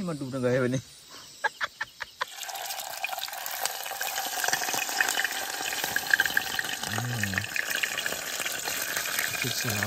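Food frying in a pot over a campfire: a steady sizzle with fine crackles, starting about two seconds in.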